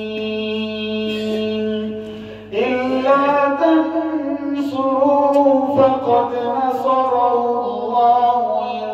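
A man's voice chanting in long, held melodic notes, the first held for about two and a half seconds before the melody moves on, amplified through a microphone. A faint steady electrical hum lies underneath.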